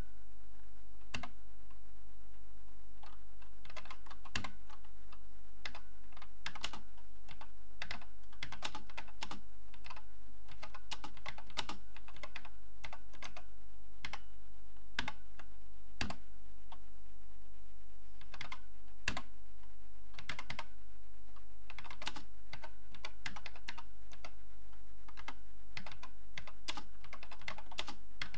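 Typing on an Acorn Electron's keyboard: irregular runs of key clicks with short pauses between them, over a steady electrical hum.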